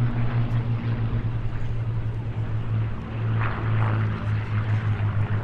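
A pair of Supermarine Spitfire Mk.Ia fighters flying past in formation, their Rolls-Royce Merlin V12 piston engines and propellers giving a steady low engine note.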